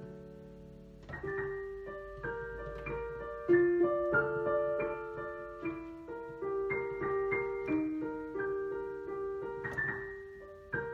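Solo piano playing. A held chord rings and fades, then about a second in a melody of single notes over lower notes takes up again at a moderate pace.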